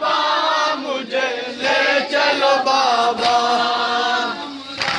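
Men's voices chanting a nauha, a Shia mourning lament, in long drawn-out sung phrases whose pitch slides slowly up and down.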